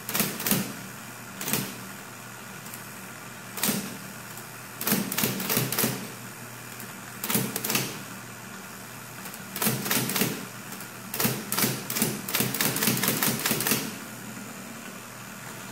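1940s IBM Electromatic electric typewriter being typed on: irregular clusters of type-bar strikes over the steady hum of its running motor, ending in a fast run of strikes near the end. Not all the keys register, which the repairer puts down to the drum needing cleaning.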